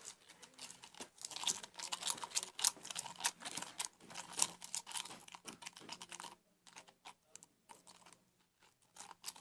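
A spoon stirring powdered detergent into water in a cup, with quick irregular clicks and scrapes against the sides. The clicking is dense for about six seconds, then drops to a few faint taps.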